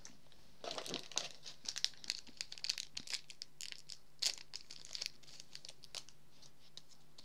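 Foil wrapper of a Yu-Gi-Oh booster pack crinkling and tearing open in a run of short, high crackles, with a sharper crackle about four seconds in.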